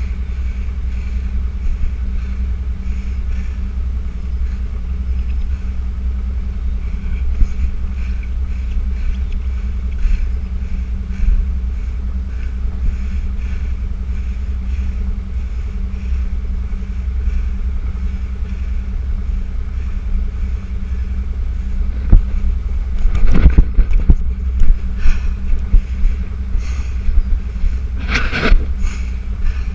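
Steady low wind rumble buffeting a runner's body-worn action-camera microphone during a run across open grass, with faint regular rustles and two bursts of louder rustling and knocks near the end.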